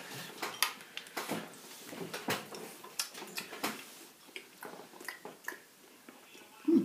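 Metal fork clicking and scraping against a ceramic bowl, then chewing. Near the end comes a short, loud vocal sound.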